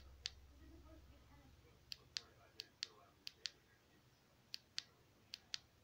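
Side switch of a Xanes PB01 flashlight clicking, pressed and released in quick pairs about five times, cycling the light through its modes.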